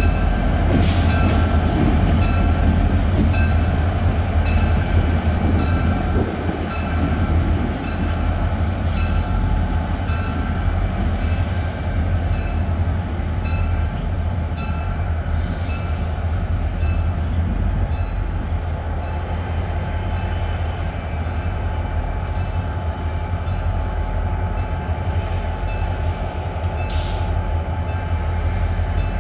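Diesel locomotives led by an EMD SD40T-2 with its 16-cylinder two-stroke 645 engine, running with a steady low drone as the train moves slowly. A locomotive bell rings steadily, about one and a half strokes a second.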